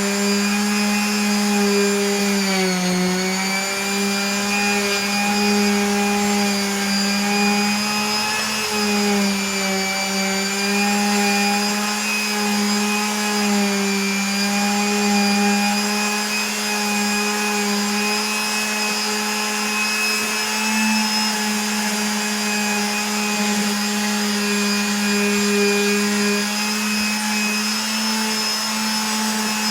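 A small electric motor running steadily with a pitched hum and overtones. Its pitch dips briefly twice, about three seconds in and again around nine seconds.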